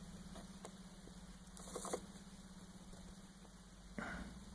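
Faint light clicks and a short scraping stroke of a hand file on the cutters of a chainsaw chain during sharpening, with a knock about four seconds in, over a steady low hum.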